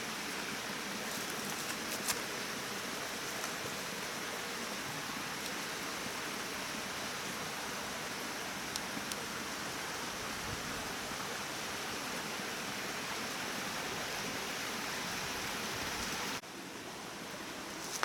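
Steady rushing of a waterfall and its stream, an even hiss with no pauses; it drops away abruptly near the end.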